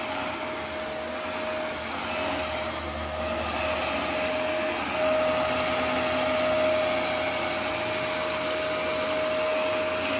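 Dyson DC24 upright ball vacuum cleaner running steadily: the rush of air with a constant motor whine held on one pitch.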